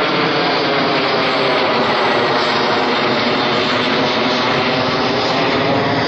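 American Airlines Boeing 737-823 climbing out overhead, its twin CFM56-7B turbofans giving a loud, steady jet roar with a faint buzzing tone through it.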